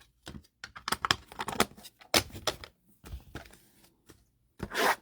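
Trading cards and plastic card holders being handled: a run of sharp clicks and short scrapes, then a brief louder rustle near the end.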